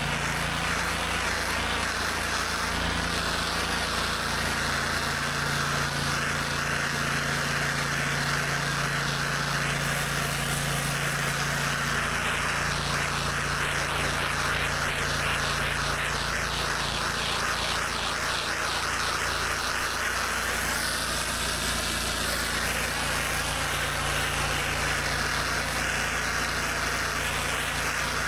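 Gas-engine pressure washer running steadily, with the hiss of a high-pressure water spray on concrete over the engine's drone.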